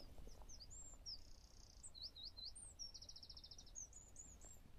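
A small songbird singing faintly: a varied run of high, quick slurred notes broken by two fast trills.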